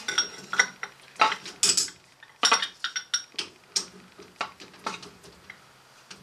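Irregular metallic clinks and wooden knocks as a wooden board is fitted against a metal lathe chuck and the chuck key is handled. They come thick in the first half and thin out towards the end.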